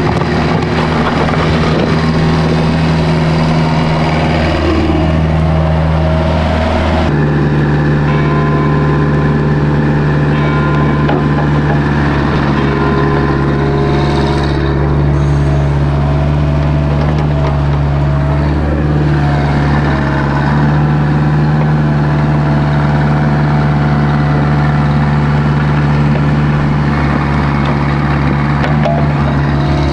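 Diesel engine of a compact earthmoving machine running steadily at a constant speed, with an abrupt shift in its note about seven seconds in.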